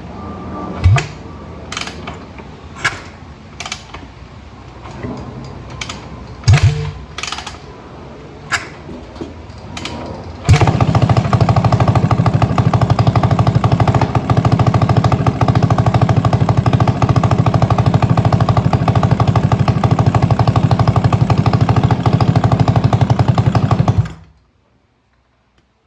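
A few sharp knocks and clicks, then about ten seconds in a Yamaha YZ450 dirt bike's single-cylinder four-stroke engine starts and runs steadily at a fast even beat for about thirteen seconds before cutting off suddenly. The engine had been hard to start, and it fires after the clogged pilot jet was cleaned.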